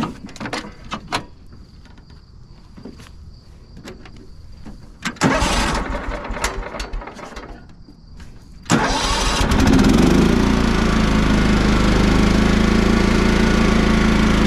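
Simplicity Coronet rear-engine riding mower being started. A few clicks from the controls come first. The starter then cranks the engine for about three seconds, and about nine seconds in the engine catches and settles into a steady run.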